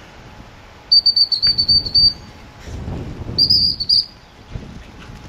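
A shooting-field whistle blown in two loud trilling blasts, a longer one about a second in and a shorter one a couple of seconds later. This is the kind of whistle used to handle working gundogs or to signal on a driven shoot.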